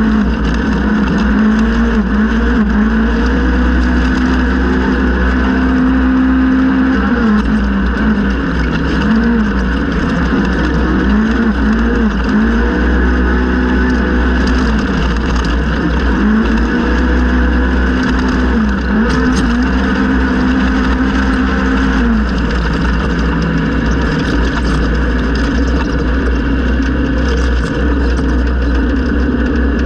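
Polaris RZR XP 1000 side-by-side's naturally aspirated twin-cylinder engine running hard at race pace, its revs climbing, holding and dropping again every couple of seconds, over a steady low rumble.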